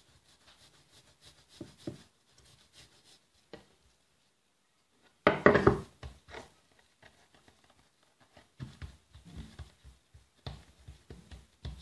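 Wooden rolling pin working dough on a wooden board with faint knocks and rubbing, then one loud knock about five seconds in as the pin is set down on the board. Hands pat and press the dough softly after it.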